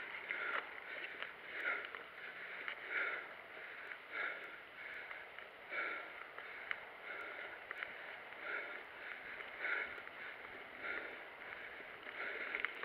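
Mountain-bike rider breathing hard and rhythmically while climbing, about one breath every second and a bit, over faint ticks and rattles from the bike rolling over gravel.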